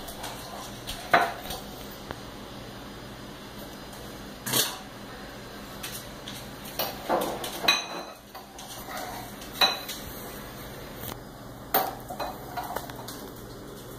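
Kitchenware handled on a countertop while a peanut butter and jelly sandwich is made: scattered clinks and knocks of jars, a plate and utensils, with about six sharp knocks spread through and quieter clatter between them.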